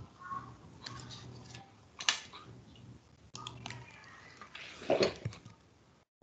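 Scattered light clicks and taps over a low steady hum, picked up through a video-call microphone, with a louder knock about five seconds in.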